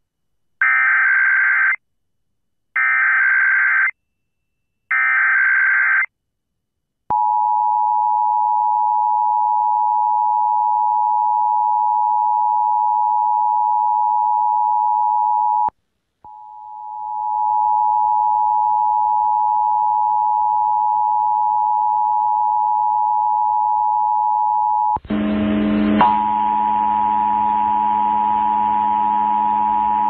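Emergency Alert System test on FM radio: three short bursts of the screeching SAME digital header, then the steady two-tone EAS attention signal. The attention tone breaks off briefly about halfway through and resumes, and a lower hum joins it near the end.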